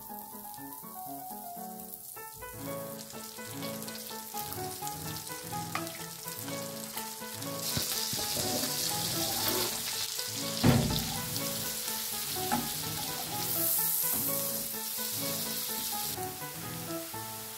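Butter sizzling in a hot wok over background music. The sizzle grows much louder about eight seconds in, and a sharp thump a little later, as chopped onion goes in, is the loudest sound. The onion then fries and is stirred with a wooden spatula.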